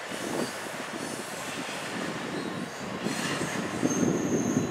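Double-stack intermodal container cars rolling away on the track: a steady wheel-on-rail rumble with uneven clatter, and a thin high wheel squeal coming in near the end.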